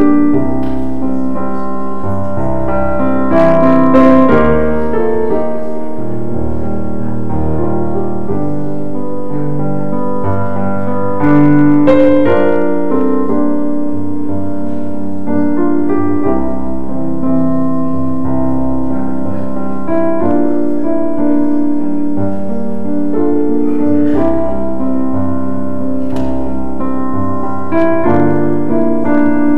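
Solo piano playing a slow, quiet piece of held chords, the prelude music before a church service.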